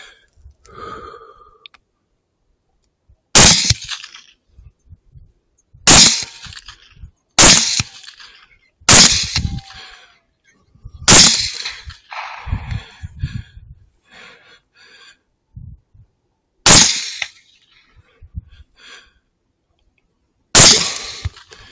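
Rifle shots: seven sharp, loud shots at uneven spacing, several about a second and a half apart, with faint rustling between them.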